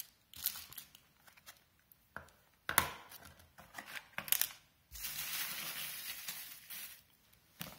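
Firework packs set down on a wooden table with a few sharp knocks, then a clear plastic bag of fireworks rustling and crinkling for a couple of seconds as it is handled.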